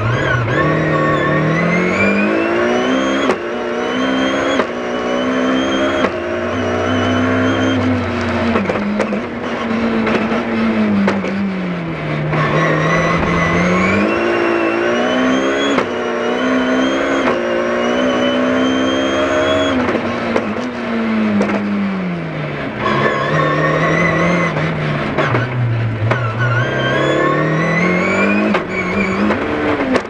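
BMW rally car engine heard from inside the cabin at stage pace. The revs climb with quick steps at the gear changes, fall away, and climb again several times, with a high whine rising and falling along with the revs.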